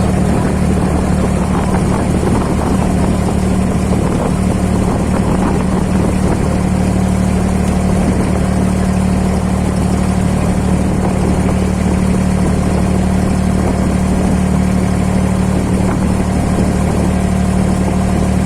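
A boat's engine running at a steady speed, a loud constant hum with no change in pitch.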